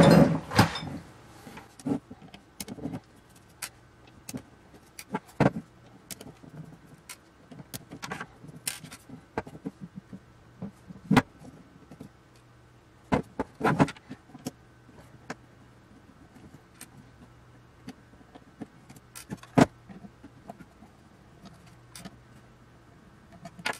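Hands handling a metal avionics box and undoing its screws with a screwdriver: scattered sharp clicks and knocks of metal parts, screws and tools set down on a wooden table. A loud bout of handling comes as the box is turned over at the very start.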